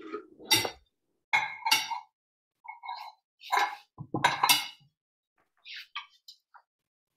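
Serving utensils clinking and knocking against ceramic plates as pasta is dished out, with a handful of separate sharp clinks over the first five seconds and a few lighter ticks after.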